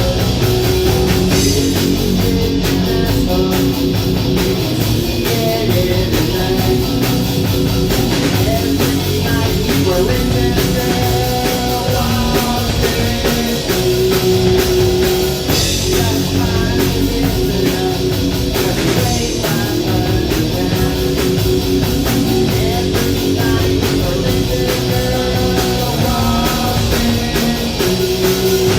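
A rock band playing live, with guitar and drum kit, loud and steady throughout.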